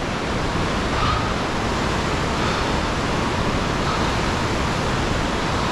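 Whitewater river rapids rushing: a steady, even roar of water.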